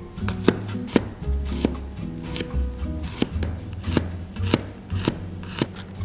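Chef's knife chopping garlic on a plastic cutting board: sharp knocks of the blade, roughly two a second.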